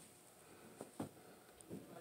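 Near silence: room tone, with two faint brief clicks about a second in.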